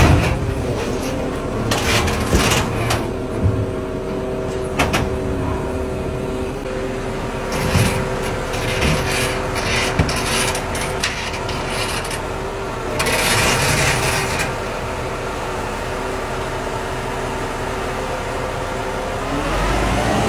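Mobile crane's engine running steadily while it lifts a wrecked truck, with scattered knocks and clanks. A burst of hiss comes about thirteen seconds in, and the engine note rises near the end.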